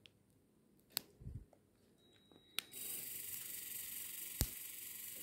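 A few light clicks and a soft knock as a 3D pen is handled, then from about three seconds in a steady, faint, high hiss of the running pen's cooling fan and motor close to the microphone, with one more click near the end.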